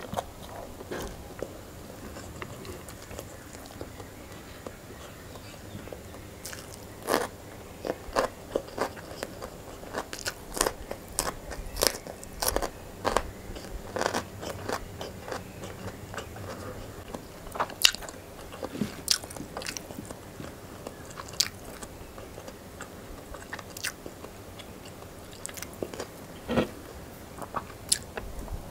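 Close-miked chewing and crunching of rice and raw leafy greens, eaten by hand, with sharp crisp crunches and mouth clicks. The bites are sparse for the first few seconds and come thick and fast from about a quarter of the way in.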